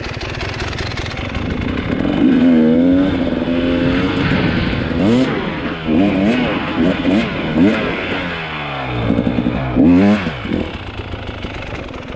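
Dirt bike engine revving hard as it is ridden, its pitch climbing and dropping again and again with the throttle and gear changes.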